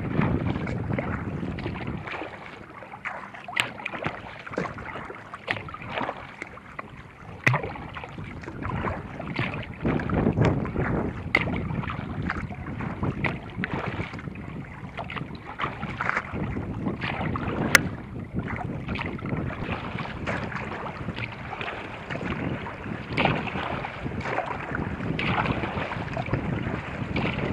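Water splashing and lapping against a moving kayak's hull in choppy water in irregular bursts, with wind buffeting the microphone.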